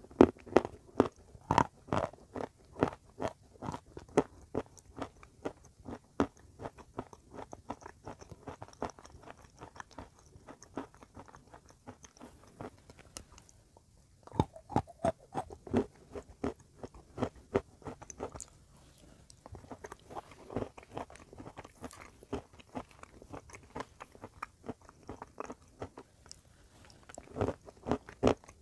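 Close-up crunching and chewing of hard, crumbly white chalk chunks: rapid crisp crunches, several a second, with a short pause about halfway through before the biting starts again.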